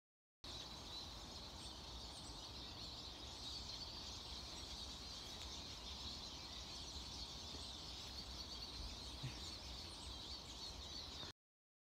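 Woodland songbirds singing, many overlapping songs forming a continuous chorus over a low rumble; it starts and stops abruptly.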